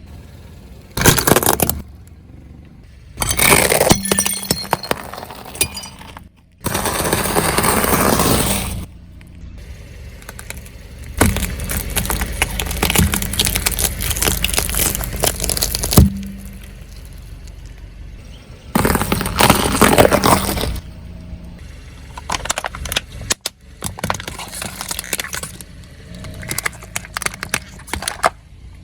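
Objects being crushed under a car's wheels: a run of separate cracking, crunching and breaking sounds with sudden cuts between them, some dense with sharp cracks.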